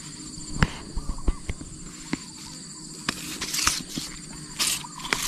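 Scattered light clicks and taps of hands handling fishing tackle, then short hissy rustles from about three seconds in. A steady high drone of insects runs underneath.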